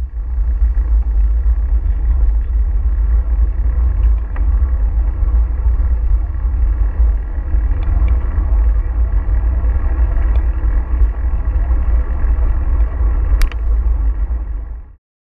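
Wind buffeting the microphone of a camera on a moving bicycle: a loud, steady low rumble, with street traffic faintly beneath it. There is one sharp click near the end.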